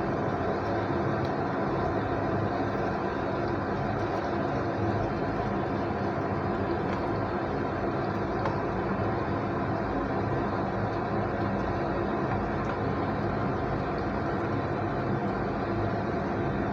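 A steady, unchanging mechanical hum over an even rush of noise, with no distinct knocks or clinks standing out.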